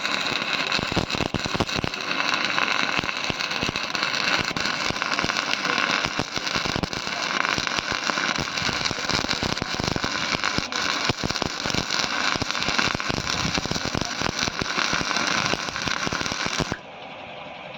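Electric arc welding on a tractor's steel plate: a steady, dense crackle and sizzle of the arc. It drops off sharply about a second before the end.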